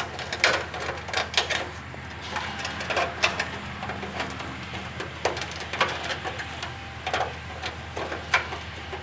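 Irregular clicks and crinkling from hands pressing and working an aluminum wire-mesh patch into a rust hole in a pickup truck's steel body panel.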